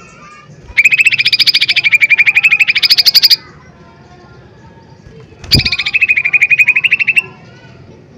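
Cucak ijo mini (a small green leafbird) giving two loud, rapid machine-gun trills of evenly repeated notes, the first about two and a half seconds long and the second about a second and a half. A low thump comes at the start of the second trill.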